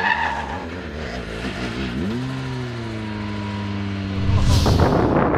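Rally car engine on a fast run: rough noise at first, then about two seconds in a clear engine note rises and holds at a steady pitch. Near the end a sudden whoosh and a loud rush of noise take over.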